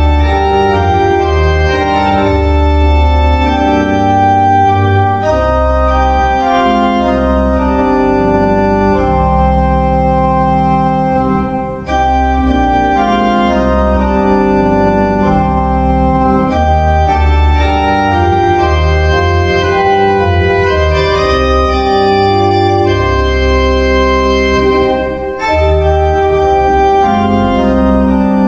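Organ playing slow, held chords over a deep bass line, with two short breaks between phrases.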